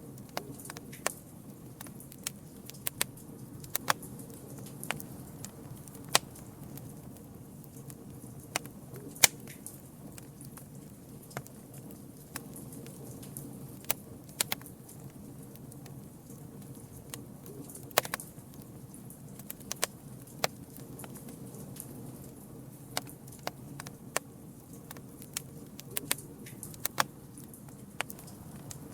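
Campfire crackling: irregular sharp pops and snaps from the burning wood, the loudest about nine seconds in, over a steady low rush of the flames.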